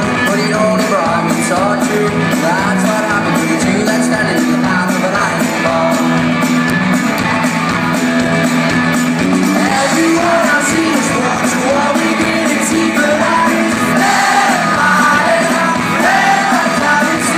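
Live rock band: a male voice singing over electric guitar and drums, heard in a large hall.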